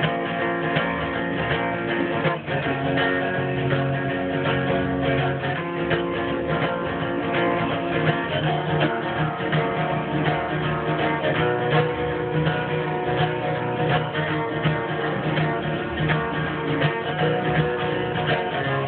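Acoustic guitar strumming chords steadily, an instrumental break with no vocals.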